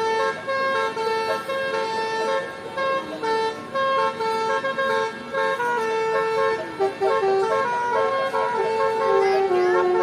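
A boat's basuri 'telolet' musical horn with upward-facing trumpets, playing a tune. Its notes are held briefly and step up and down one after another.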